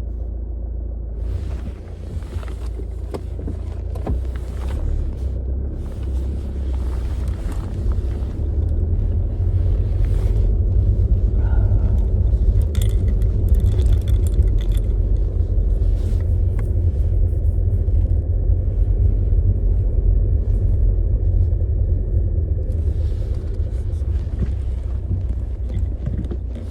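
Car cabin noise while driving: a steady low engine and road rumble, with scattered light clicks and rattles.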